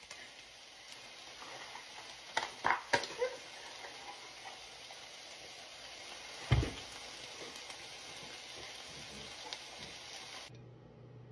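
Chicken frying in a pan with a steady sizzle, with a few light clatters of a utensil about two and a half to three seconds in and one louder knock about six and a half seconds in. The sizzle cuts off suddenly near the end, leaving a low hum.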